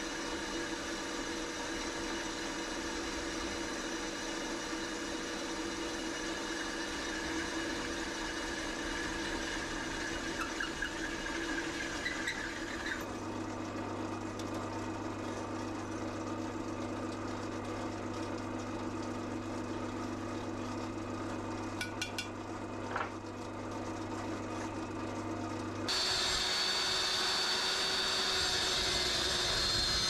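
Bench pillar drill running as it drills through steel box section, a steady machine sound whose pattern shifts about halfway, with a few light clicks later on. Near the end a metal-cutting chop saw cuts into steel tube, louder and with a high whine.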